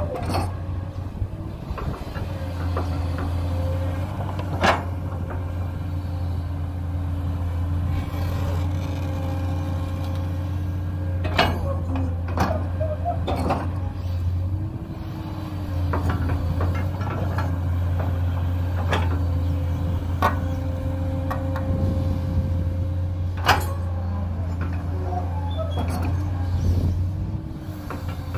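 JCB 210 tracked excavator working under load: a steady low diesel hum with a higher tone that dips and rises as the boom and bucket move. Several sharp clanks of the bucket and arm break through it, and the engine eases briefly about halfway through.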